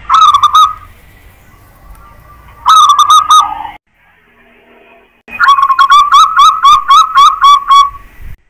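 Zebra dove (perkutut) cooing in three phrases of quick, evenly repeated notes. The first two phrases are short, and the last runs about three seconds with around a dozen notes.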